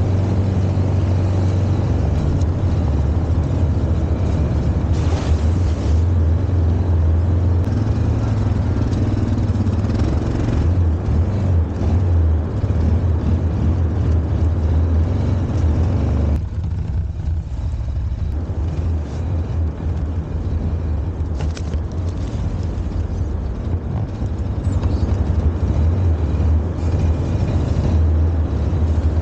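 ATV engine running steadily under way on a rough trail, heard from on board. It eases off for several seconds past the middle, then picks up again.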